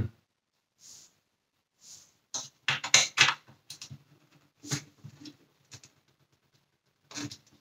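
Small precision screwdriver and fingers working at tiny screws in a plastic vacuum-cleaner cyclone housing: irregular clicks and scrapes, densest about three seconds in.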